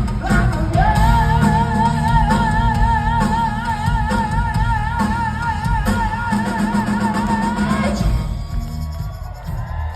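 Live rock band playing with drums and guitar, the singer holding one long high note with a wide vibrato for about seven seconds. The band drops out about eight seconds in.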